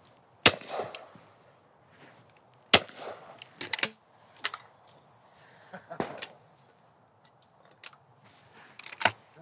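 Two shots from a Miroku MK38 over-and-under shotgun, about two seconds apart. About a second after the second shot comes a quick clatter as the gun is broken open and the ejectors flick out both spent cartridges, followed by scattered small clicks as it is reloaded.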